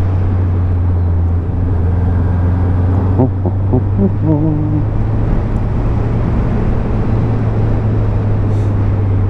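Honda CBF600's inline-four engine running at a steady cruise while riding, a constant low hum with wind and road noise over it.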